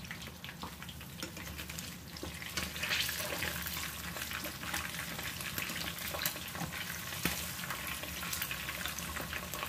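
Chicken leg quarters frying in hot oil in a pan: a steady crackling sizzle with many small pops and a few louder ones.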